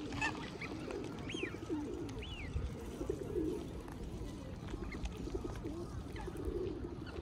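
Pigeons cooing over and over in low, rolling phrases, with a few short chirps from small birds above them.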